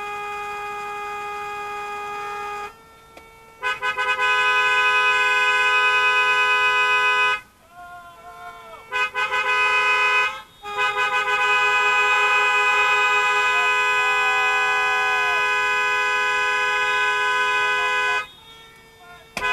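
Several car horns held down together in a long protest honk, steady tones at more than one pitch sounding over each other. They break off briefly about three seconds in, again for a second or two around the middle, and once more near the end, each time starting up again.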